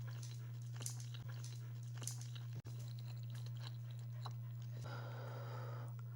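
Close-miked chewing of soft soup dumplings: scattered wet smacks and mouth clicks over a steady low electrical hum, with a short breathy sound about five seconds in.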